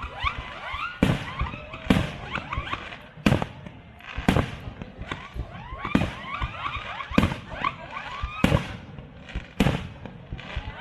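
Aerial fireworks: shells bursting with sharp bangs about once a second, while many whistling effects rise in pitch between the bangs.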